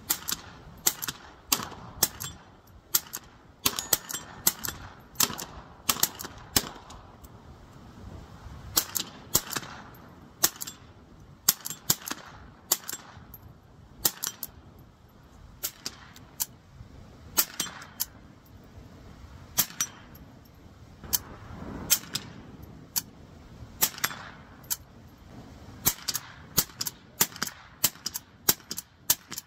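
Savage Model 187N .22 semi-automatic rifle firing one shot at a time at irregular intervals, each a sharp crack. Some shots are followed closely by a second click from the bolt-release action that gives the rifle its click-clack.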